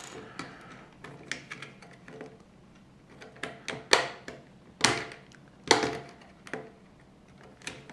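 LEGO plastic bricks and plates clicking and clattering as they are handled and pressed together, in irregular sharp clicks, with three louder snaps about halfway through.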